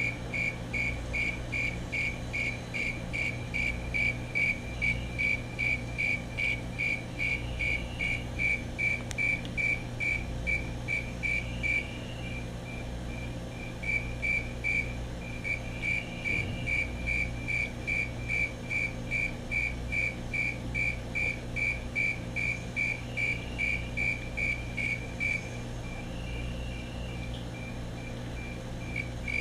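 Male snowy tree cricket calling: a steady, even train of short, clear, high-pitched chirps, about two or three a second. The chirps turn weaker for a couple of seconds about twelve seconds in, and again for the last few seconds.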